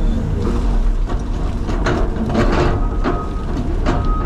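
Caterpillar 336 excavator's diesel engine running steadily under load. From about two seconds in, the bucket and steel tracks clank and scrape repeatedly as the machine works dirt.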